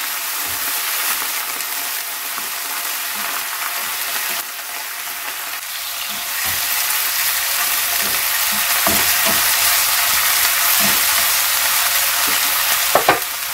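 Sliced onions sizzling in a frying pan in a little oil with a splash of water added to stew them, stirred with a wooden spatula that scrapes and knocks against the pan now and then. The sizzle grows louder about six seconds in.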